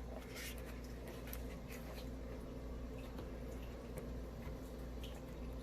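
Faint clicks and light scraping of a laptop's LCD panel and plastic parts being handled, over a steady low hum.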